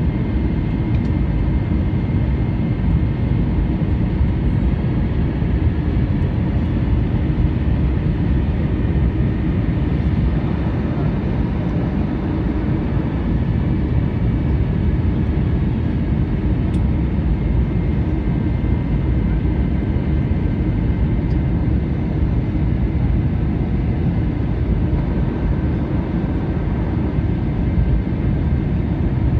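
Steady rumble of an Airbus airliner's jet engines and airflow, with faint steady high whines over it.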